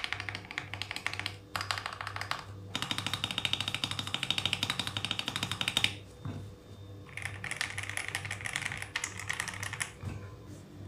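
Rapid typing on a mechanical keyboard fitted with lubed Jelly Strawberry V2 linear switches, keys bottoming out in quick runs of clicks. The typing breaks off for about a second around six seconds in, then resumes and stops near the end.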